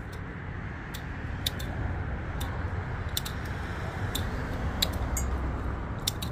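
Hand pruning shears snipping thin woody side shoots off young Chinese quince saplings: a series of short, sharp snips, about one or two a second, over a steady low rumble.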